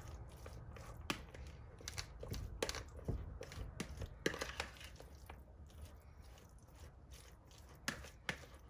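Fork flaking canned tuna in a plastic mixing bowl: irregular clicks and scrapes of the metal tines against the plastic, with soft squishing of the fish.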